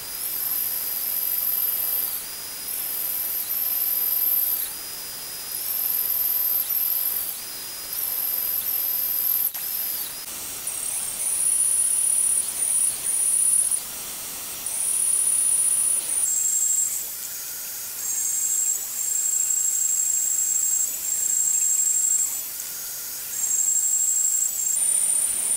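Bandsaw blade cutting steel angle iron, a high-pitched squealing ring over a hiss of cutting. It swells and drops back every second or two as the work is pushed into the blade and eased off, and the pitch of the squeal shifts from one stretch to the next.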